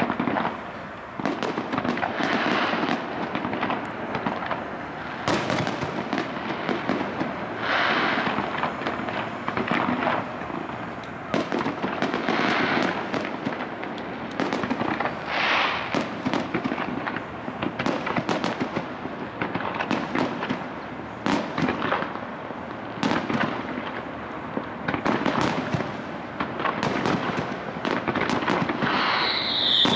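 Fireworks display: a dense, continuous run of aerial shell bursts, many bangs in quick succession, with a falling whistle near the end.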